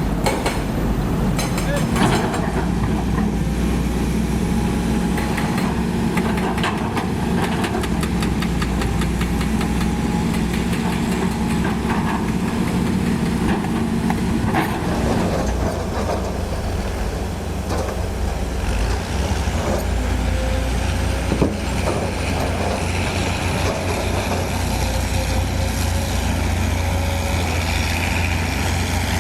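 Diesel engine of heavy earthmoving machinery running steadily, with scattered knocks and clanks from the working machine. The engine note changes about halfway through.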